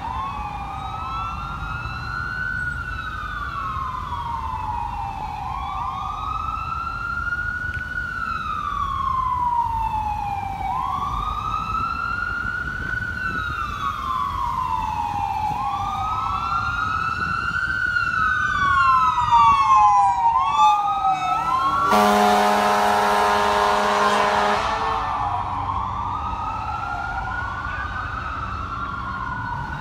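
Fire engine siren wailing, rising and falling about every five seconds, switching to quicker sweeps shortly before a long air horn blast. The horn comes about 22 seconds in and lasts roughly two and a half seconds. It is the loudest sound, and then the wail resumes.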